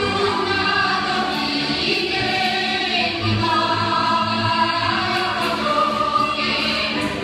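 Dance music with a group of voices singing, going on steadily.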